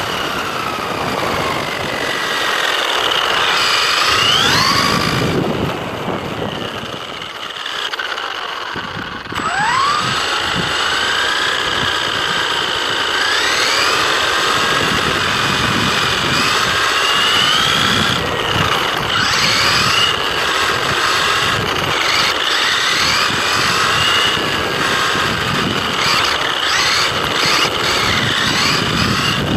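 Absima AB1BL brushless electric RC buggy driving, heard from a camera mounted on its chassis. The motor and drivetrain whine rises and falls in pitch with the throttle over a steady rumble of tyres on tarmac and later on cobbles. The whine drops away for a few seconds and then climbs sharply again about nine seconds in.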